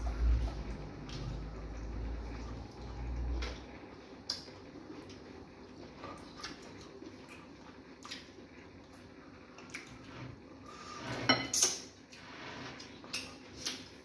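Ceramic plates and a soup bowl clinking and knocking as two people eat fufu and banga soup by hand, with a louder clatter of dishes about eleven seconds in. A low hum runs under the first few seconds.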